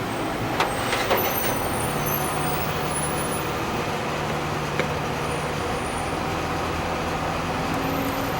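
Steady mechanical hum and noise, with a few sharp clicks: two about half a second and a second in, and one near five seconds.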